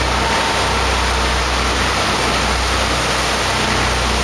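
Motor boat under way in a chop: a steady rush of wind and water over a low, even engine drone.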